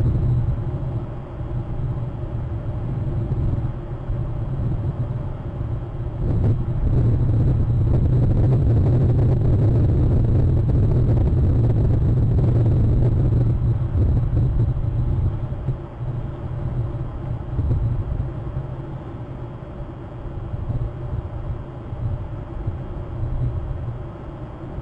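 Low, gusting rumble of wind buffeting an outdoor camera microphone. It swells loudest in the middle and eases over the last ten seconds.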